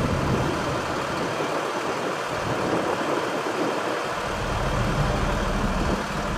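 Siemens Avenio low-floor tram rolling slowly through a curve on new track, a steady running and rolling noise mixed with street and vehicle noise.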